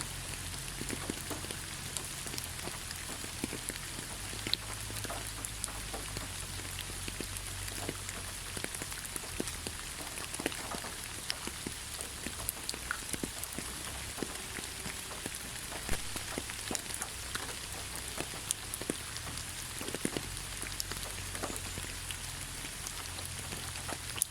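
Steady rain falling: an even hiss with many individual drops striking close by as short, sharp ticks.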